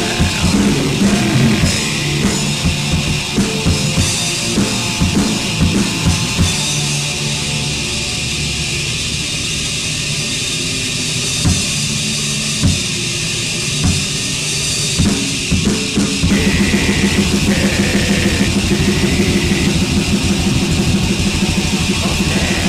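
Black metal music: drums strike irregularly under a sustained band sound, then about 16 seconds in they break into a fast, dense, even beat.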